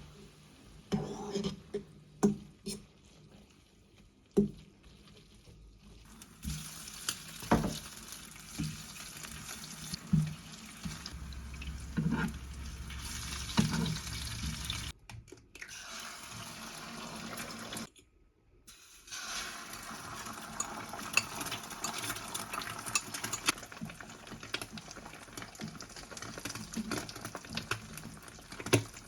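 Kitchen cooking sounds: running or pouring water with knocks and clinks of pots and utensils, in several short clips cut together with abrupt breaks.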